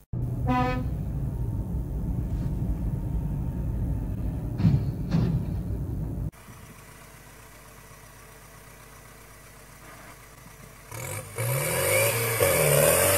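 Steady low road rumble from a moving vehicle for about six seconds, cut off suddenly. After a quieter stretch, a tractor's diesel engine revs up and down near the end.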